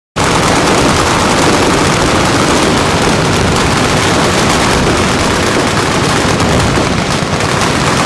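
Massed fully automatic machine-gun fire from many guns at once, an unbroken rattle of overlapping bursts, starting abruptly just after the start, with explosions of range targets mixed in.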